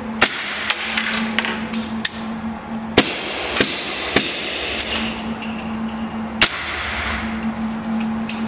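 Suppressed carbine firing subsonic rounds, single shots at uneven intervals: about ten sharp cracks, the loudest a quarter-second in, at three seconds and at six and a half seconds, with fainter ones between.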